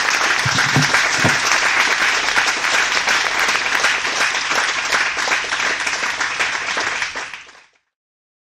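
Audience and panellists applauding: dense, steady clapping that fades away near the end.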